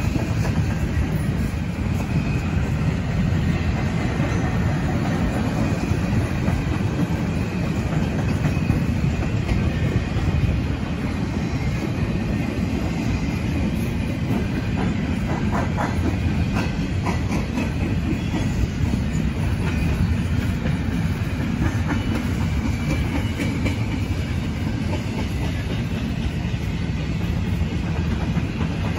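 CP freight train of empty flatcars rolling past with a steady low rumble, with a cluster of wheel clicks over rail joints around the middle.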